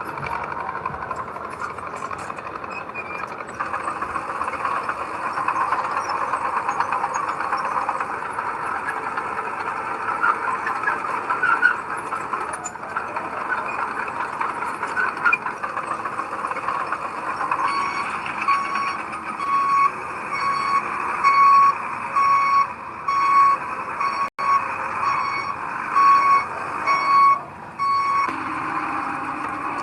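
Heavy earthmoving machinery running at a work site. A little past halfway a reversing alarm starts beeping evenly, about three beeps every two seconds, and stops near the end.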